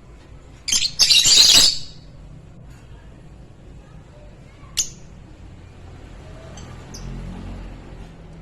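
Fischer's lovebirds giving shrill, harsh chirps: a loud burst of calls about a second in that lasts about a second, then a single short sharp chirp near five seconds and a few faint ones later.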